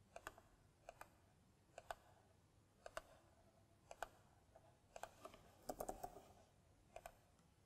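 Faint computer clicks about once a second, with a quick run of keyboard keystrokes about six seconds in as a short word is typed.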